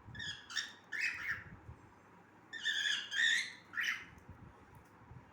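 Cockatiel singing in short chirped and whistled phrases: three quick calls in the first second and a half, a longer warbling phrase around three seconds in, and one more call just before four seconds.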